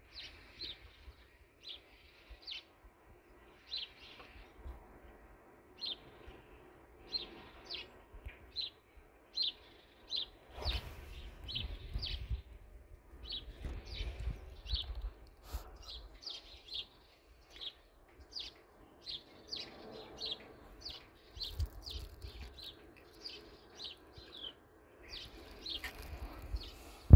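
A bird chirping over and over, short high chirps about once or twice a second. Stretches of low rumble come in about ten seconds in and again later on.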